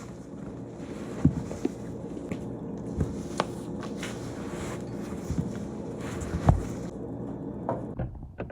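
A machine engine running steadily, with several sharp knocks and clanks over it.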